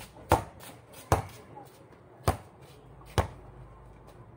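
Basketball bouncing on a concrete court: four hard, sharp bounces at uneven intervals, with a few fainter knocks between them.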